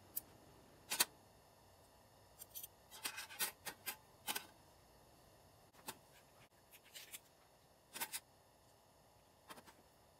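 Stainless camping cutlery clicking and clinking: a nesting knife, fork and spoon set being pulled apart and set down piece by piece on a metal camp table, in scattered sharp clicks with a quick cluster a few seconds in.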